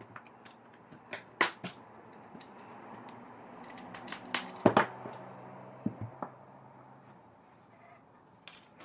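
Steel T-slot clamp parts and an Allen key clicking and clinking as the clamps are unbolted and lifted off a milling vertical slide. There are a dozen or so separate sharp clicks and knocks, the loudest about one and a half seconds in and near the middle, over a faint low hum.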